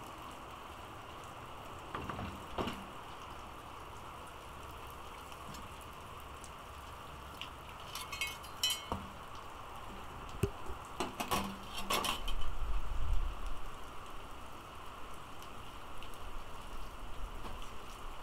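Steady rain falling, with a few scattered knocks and clinks as items are set down on a metal table.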